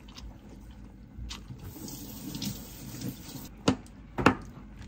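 Soft wet squishing of a child's hand mashing tofu in a ceramic bowl, then near the end two sharp knocks of a kitchen knife cutting through a block of tofu onto a plastic cutting board.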